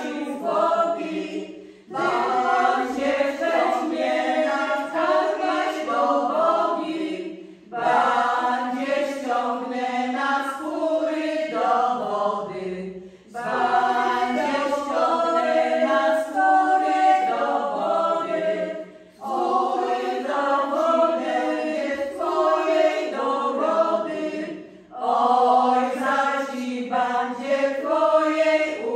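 Women's vocal group singing an old Polish folk song unaccompanied, in several voices. The phrases last about five or six seconds, with a brief pause for breath between each.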